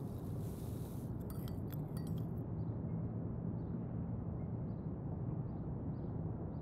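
A spoon clinking several times against a ceramic coffee cup, a quick run of small clinks between about one and two seconds in, over a steady low hum.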